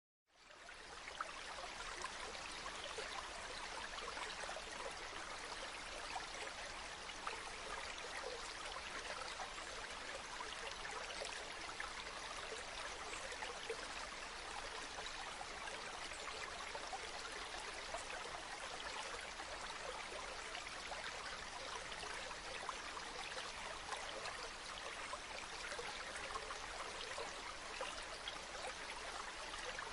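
Water flowing steadily in a stream, a continuous splashing rush with small irregular trickles and drips, fading in at the very start.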